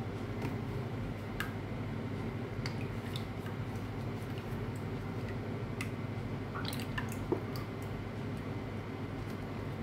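Cooking cream pouring from a carton in a thin stream into a stainless steel pot of melted butter, with scattered small drips and ticks over a low steady hum.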